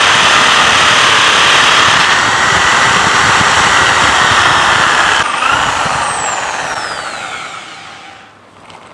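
Electric drill boring a hole into a wall at full speed. About five seconds in the drill is released and its motor winds down, a whine falling in pitch as it fades over the next three seconds.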